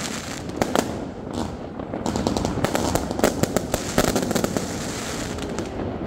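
Fireworks bursting overhead, rockets and aerial shells, in a rapid, irregular run of bangs and crackles. They come thickest a couple of seconds in and thin out toward the end.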